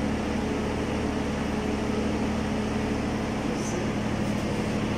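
Steady hum of a fan or air-conditioning unit running, with one brief high chirp near the end.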